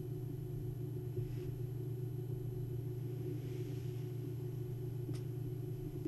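Steady low electrical hum with faint background hiss, and a single faint click about five seconds in.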